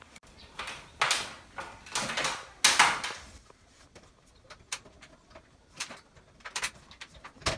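Plastic diffuser cover of an LED ceiling light being worked off its base: three short rubbing scrapes of plastic on plastic in the first three seconds, then a few light clicks.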